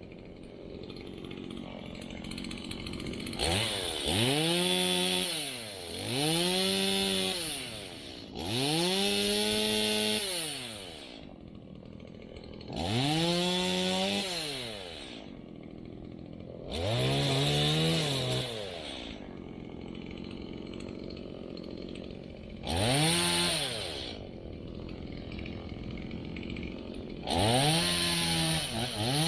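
Stihl MS170 two-stroke chainsaw revving up and dropping back to idle about seven times, cutting up a storm-downed branch.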